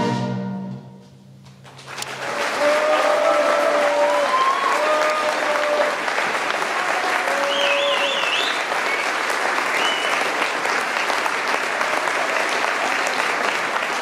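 A concert wind band's final held chord dies away. About two seconds in, the audience breaks into steady applause, with a few cheers heard above it.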